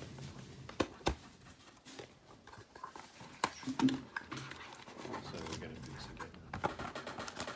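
Hands handling cardboard trading-card boxes and wrapped card packs: scattered light taps, knocks and rustles, with a sharper knock about a second in.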